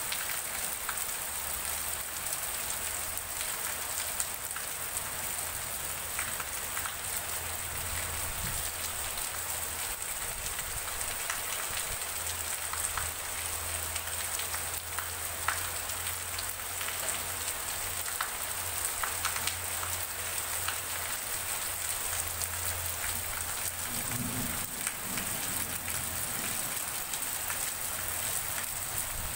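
Heavy rain falling steadily, a continuous hiss with many small drop ticks as it splashes on a wet concrete path and the field beyond.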